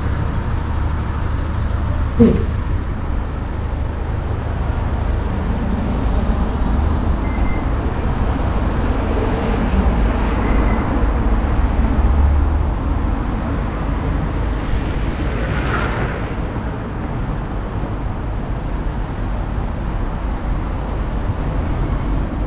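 City street traffic: a steady low rumble of passing vehicles, with a short sharp noise about two seconds in.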